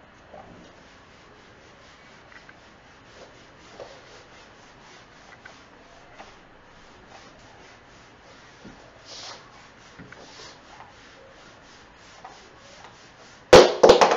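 Whiteboard eraser wiping the board in quick, faint, repeated rubbing strokes, with a much louder rough rubbing burst near the end.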